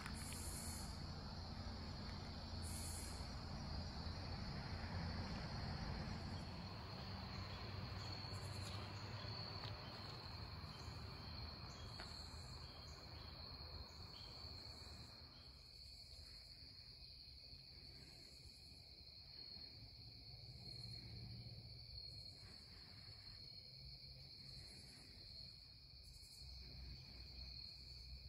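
Dusk insect chorus of crickets: a steady high trill, with shorter, higher chirps repeating every second or two. A low, noisy rumble underneath fades out about halfway through.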